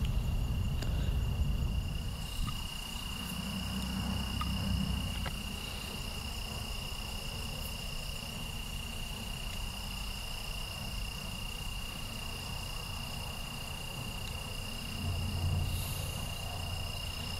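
Crickets trilling: one steady, unbroken high-pitched trill with a fainter, higher trill coming and going above it, over a low rumble.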